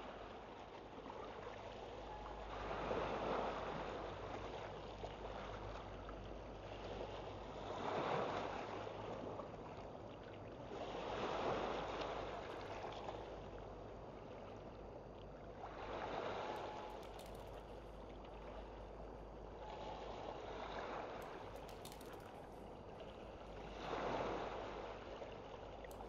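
Rushing noise that swells and fades about every four seconds, six times in all, over a steady low hum.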